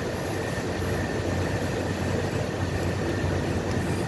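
Steady low hum and rumble of a running motor in the background, unchanging throughout, with a faint high steady tone.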